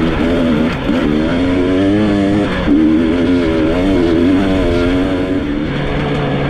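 Enduro dirt bike engine revving up and down repeatedly under the throttle, settling into a steadier, lower note near the end.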